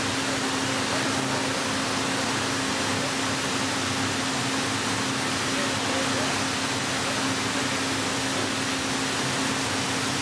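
Heller CNC four-roll hydraulic plate bending roll running steadily as it rolls a steel plate: an even machine hum with one steady droning tone over a broad hiss.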